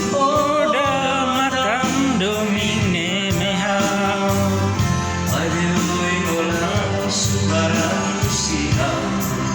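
A solo voice singing with a wavering vibrato over an electronic keyboard accompaniment with held chords, a bass line and a steady beat.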